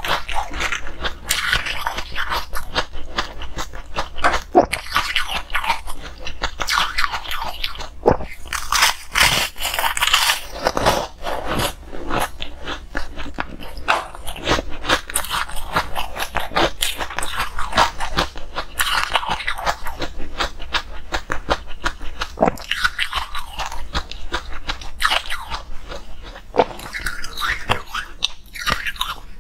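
Close-up crunching and chewing of coloured ice in the mouth: dense, irregular cracks and crackles as the ice is bitten and ground between the teeth.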